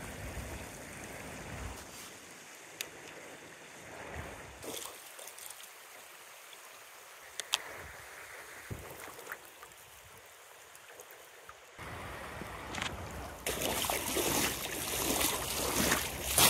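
Shallow river water running over a gravel bar, with scattered small clicks of pebbles underfoot. Near the end, louder crunching footsteps on wet river gravel take over.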